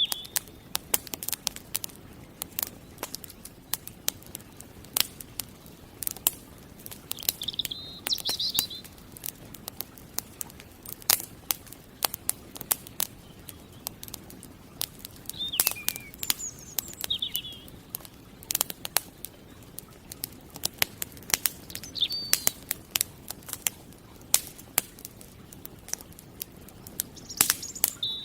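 Campfire crackling, with frequent sharp pops and snaps, while a bird gives short chirping calls every several seconds.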